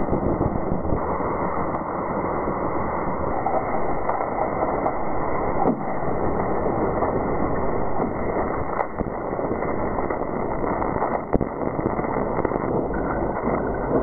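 Seismometer recordings sped up and played as sound: a steady, dull hiss of background ground noise at the Sierra Nevada stations, which is wind, microseisms and traffic shaking the ground, with a few faint ticks.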